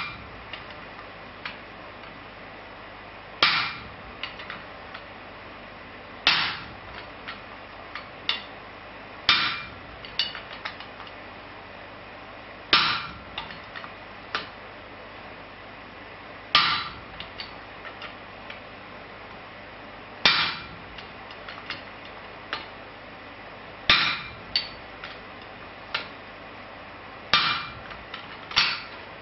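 Hammer blows on the top die of a spring swage, about one every three to four seconds, each with a short metallic ring, forging a tenon on a red-hot square bar. Lighter clicks and taps come between the blows.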